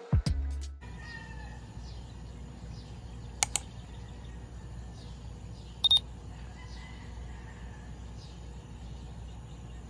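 Morning outdoor ambience: a steady low rumble with faint bird calls chirping now and then above it. Two brief sharp sounds stand out, one about a third of the way in and one just past the middle.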